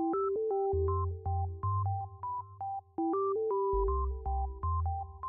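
Background music: an electronic synthesizer tune of short repeated notes over a pulsing bass line.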